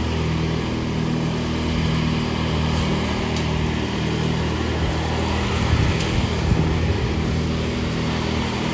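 Riding lawn mower engine running steadily at working speed while mowing, with a few louder low bumps about two-thirds of the way through.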